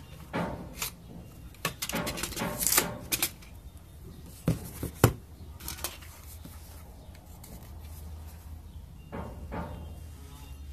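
Utility knife cutting a strip of carbon fiber felt, with short scratchy cutting strokes and several sharp clicks and knocks from the blade and tape measure; the sharpest click comes about five seconds in, and more scratchy strokes follow near the end.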